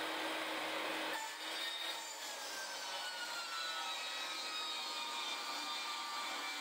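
Portable table saw ripping a pine board lengthwise, a steady cutting noise. About a second in the sound changes as the cut gets going, and the saw's pitch then sags slowly.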